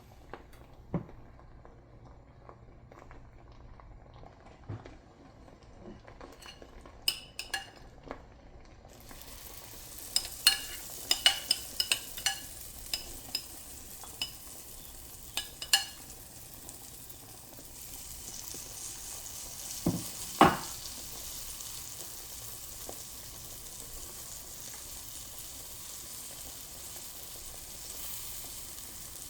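Sweet potato pancakes frying in a hot pan: a sizzle sets in about nine seconds in and grows louder about halfway through. Through the middle come scattered clicks and taps of a utensil against the pan, with two louder knocks about twenty seconds in.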